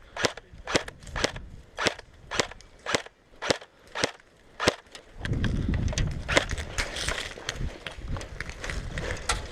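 Airsoft gun firing single shots, about two a second, roughly ten sharp snaps over five seconds, then a few scattered shots over steady background noise.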